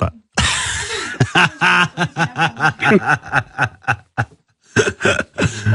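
Hearty laughter in quick rhythmic bursts, about five a second, breaking off briefly about four seconds in before starting again.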